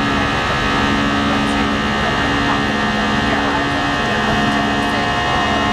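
Airbus A319 cabin noise in flight: the steady drone of the jet engines and rushing airflow, with several steady humming tones.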